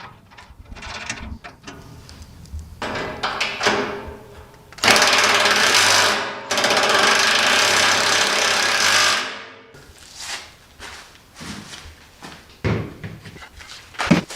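A handheld power tool runs in two long bursts, about a second and a half and then about three seconds, winding down at the end of each, with scattered knocks and clatter of parts being assembled before and after.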